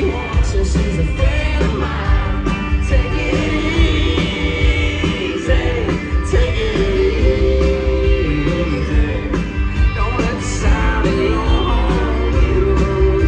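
Live country-rock band playing loud through a concert PA, heard from the audience: a male lead vocal over acoustic guitar, bass guitar and drums.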